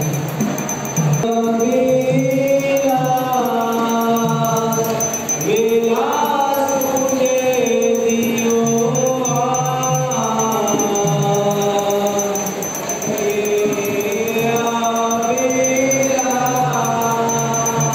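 A group of devotees singing a Hindu devotional kirtan together: long, melodic chanted lines that rise and fall, with small hand cymbals ticking in time.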